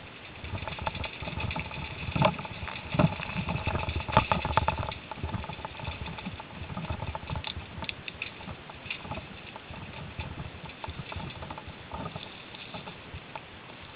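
Mountain bike riding over a rough dirt woodland trail: a constant rattling and knocking of the bike over bumps, heaviest between about two and five seconds in.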